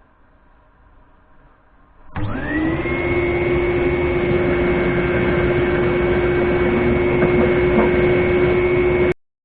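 An electric workshop machine is switched on, its motor whining up to speed within about half a second and then running loud and steady; the sound cuts off abruptly near the end.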